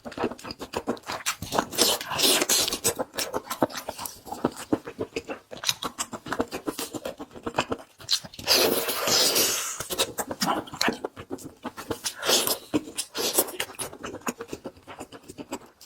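Close-miked eating: a person chewing and biting with dense, irregular wet clicks, smacks and crunches, and a few longer slurping or rustling stretches about halfway through.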